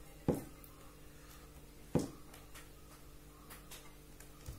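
Eating by hand from a steel plate: a few sharp clicks and knocks as fingers mix wheat puttu against the plate, the loudest about two seconds in, with fainter ticks between. A faint steady hum underneath.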